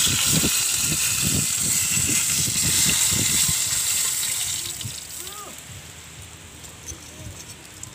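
Tilapia frying in hot oil in a wok, a loud steady sizzle that fades away about four to five seconds in as the fish is lifted out of the oil with tongs.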